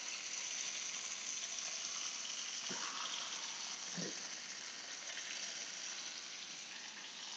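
Steaks frying in butter and garlic in a frying pan, a steady sizzle. Two faint knocks near the middle as the pan is shifted on the cooktop.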